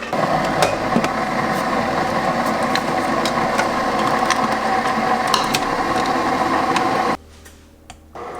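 A small electric kitchen appliance motor running steadily, starting suddenly and cutting off after about seven seconds.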